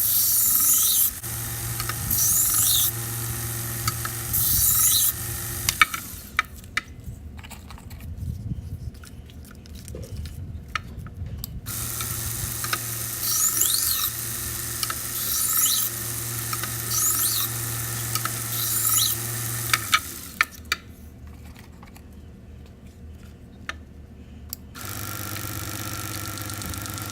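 A motor-driven sharpening machine running, with a blade pressed to the abrasive in repeated grinding passes of about a second each. There are two pauses of several seconds filled with light clicks and handling before the passes resume.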